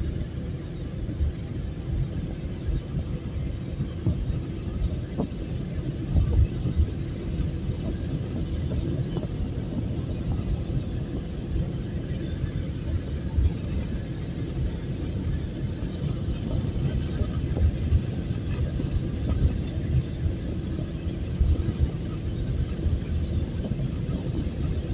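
Steady low rumble of road and engine noise inside a vehicle's cab at highway speed, about 66 mph, with a few louder low thumps from the road.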